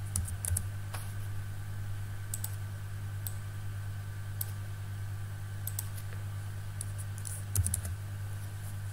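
Scattered clicks and taps of a computer keyboard and mouse as a number is typed in, over a steady low hum.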